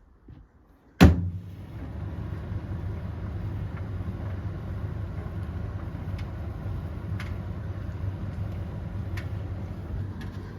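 Tumble dryer starting up with a sharp clunk, then its drum turning with a steady low rumble. A few light clicks come through it.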